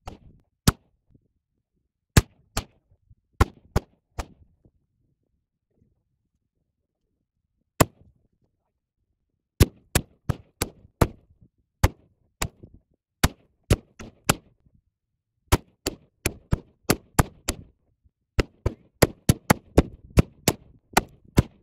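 Gunfire: several dozen sharp, single shots from a firearm, fired at carved pumpkins as targets. The shots are irregular at first and come in a quicker string of several a second over the last few seconds.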